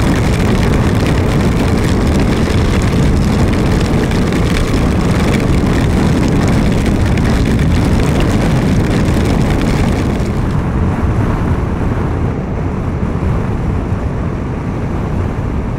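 BMW G310GS motorcycle riding at road speed in rain: wind rushing over the microphone, with engine and tyres on a wet road. The high hiss thins out about ten seconds in.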